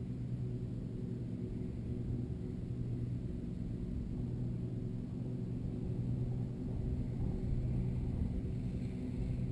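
Wind rumbling on the microphone on a breezy day, a rough low noise, with a steady low hum running underneath.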